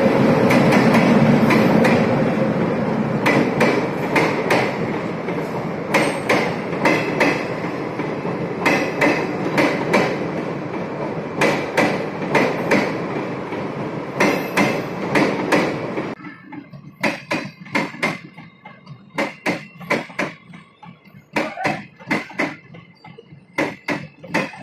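Wheels of a passing train of parcel vans and automobile-carrier coaches clacking over the rail joints again and again above a steady rumble. About two-thirds through, the rumble drops away abruptly and only irregular clacks remain.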